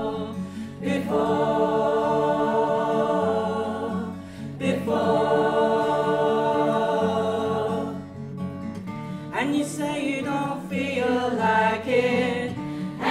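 Choir singing long held chords with acoustic guitar accompaniment. The chords break off and start again every three to four seconds. From about two-thirds of the way in, the voices move on to quicker-changing sung words.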